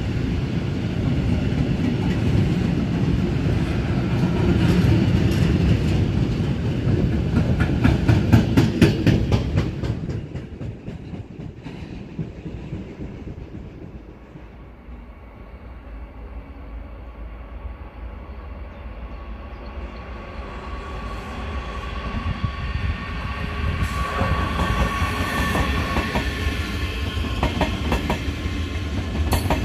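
A freight train of covered wagons rolls past, its wheels clacking rhythmically over rail joints, then fades away about a third of the way in. After a quieter stretch, a double-deck Intercity 2 train approaches with a rising rumble, a steady whine and wheel clatter near the end.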